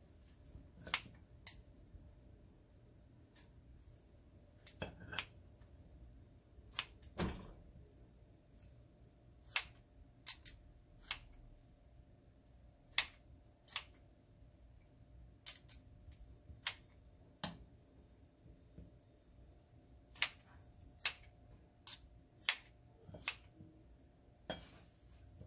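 Kitchen scissors snipping through slices of boiled pork on a plate: a string of short, sharp snips at an irregular pace, some one or two seconds apart and some in quick pairs.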